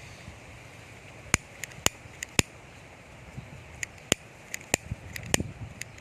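Steady rain hiss, with about a dozen sharp, irregular ticks over it, the loudest about a second and a half in and again near two and a half seconds.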